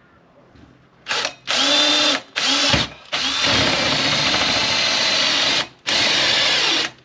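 Cordless drill running a hole saw into the side of a plastic waste water tank, starting about a second in and going in five bursts, the longest about two and a half seconds.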